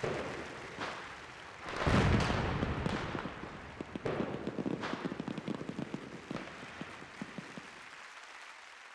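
Fireworks sound effect: a few bursts, the loudest about two seconds in, each followed by dense crackling that thins out and fades toward the end.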